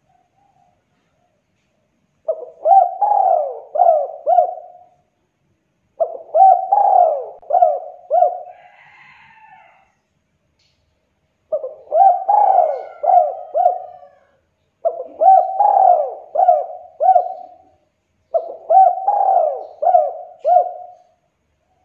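Spotted dove cooing: five phrases of several falling notes each, the phrases repeated every three to four seconds. After the second phrase there is a faint, higher warble.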